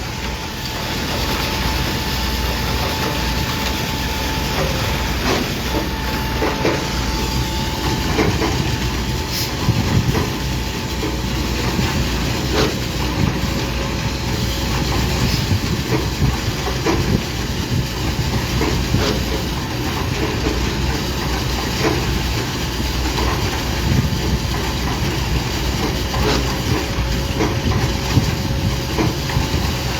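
Heavy construction machinery running steadily, with a hiss and scattered knocks and clatter.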